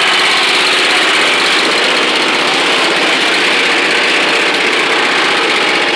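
Garden tractor's 8 horsepower Tecumseh single-cylinder engine running steadily after being started.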